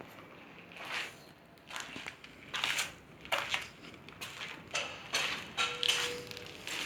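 Footsteps crunching and scraping on a gritty, debris-strewn concrete floor, in irregular steps about one every half-second to second.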